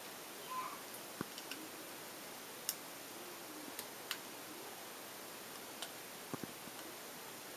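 Faint, irregular small clicks and ticks as thin orthodontic wire and a small hand tool knock against the brackets on the teeth while the jaws are being wired shut, over a steady low hiss.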